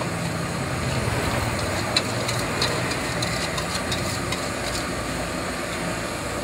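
Gas burner under a steel wok burning with a steady rush, with a few light metallic clinks of the spatula on the wok. A motorbike engine runs in the background.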